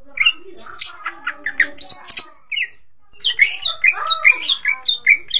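Cucak ijo (green leafbird) singing a fast, varied chattering song in two runs of quick notes that jump in pitch, with a short break about halfway through.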